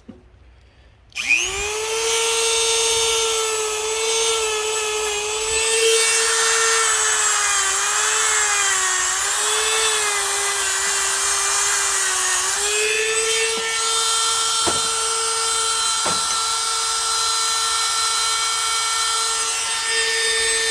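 Dremel rotary tool with a mini wire brush spinning up about a second in to a steady high whine. Its pitch sags and wavers for a few seconds as the brush is pressed against the welded joystick ball to scrub off weld spatter.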